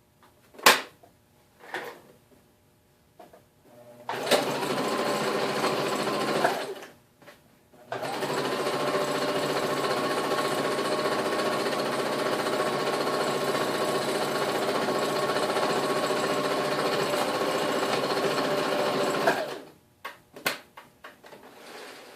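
Electric sewing machine running at a steady speed as it stitches a hem, in two runs: a short one about four seconds in, then a longer one of about eleven seconds that stops near the end. A sharp click comes just before the first run, with a few small handling clicks after the machine stops.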